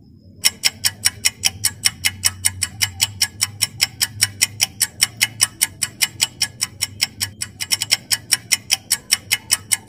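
Clock-style ticking sound effect for a quiz countdown timer: quick, even ticks, about five a second, starting about half a second in, over a faint low hum.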